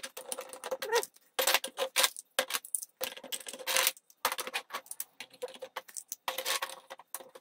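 GraviTrax large height tiles, hard plastic hexagonal blocks, clicking and clattering against each other and the tabletop in quick irregular bursts as they are picked out of a loose pile and stacked.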